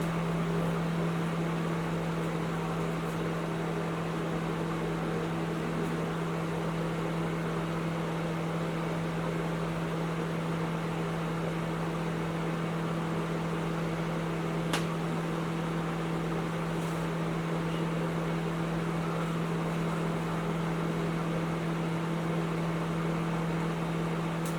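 Panasonic NN-ST45KW 1000-watt inverter microwave oven running: a steady low hum over the even rush of its cooling fan, with one brief tick about halfway through.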